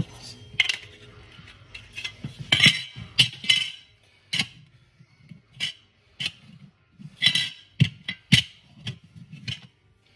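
Irregular light clicks, clinks and knocks of small hard parts being handled, about a dozen over the stretch.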